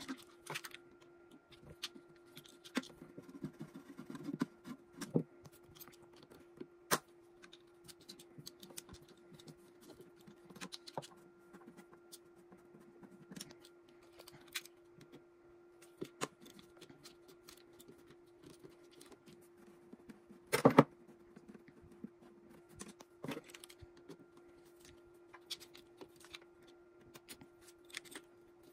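A hex key working small machine screws out of the plastic casing of a key cutting machine: scattered light clicks, ticks and scrapes of the metal key and loose screws, with one louder knock about 20 seconds in. A steady low hum runs underneath.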